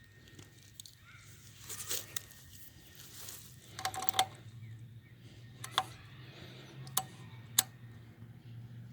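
A few sharp clicks and knocks with light rattling, like things being handled, over a faint steady low hum; the loudest clicks come about four seconds in and near the end.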